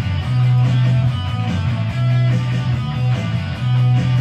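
Rock song playing: an instrumental stretch of strummed electric guitar over a heavy bass line, with no singing.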